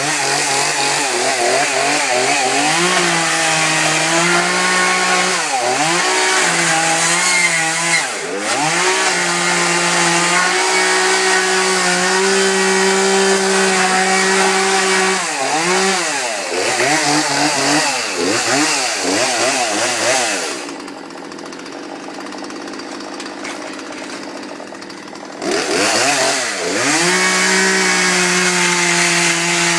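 Two-stroke gasoline chainsaw running at high revs, its pitch repeatedly dipping and climbing back as the throttle is let off and squeezed again. About 21 seconds in it drops to a quieter idle for several seconds, then revs back up.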